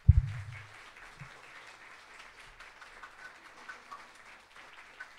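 A short low thump right at the start, then an audience applauding, faint and even.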